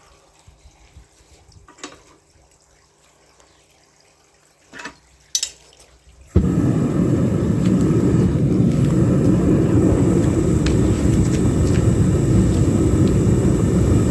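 A few faint clicks and knocks, then about six seconds in a metal-melting furnace's burner starts abruptly and runs at a steady, loud, even rush, heating the crucible of bronze.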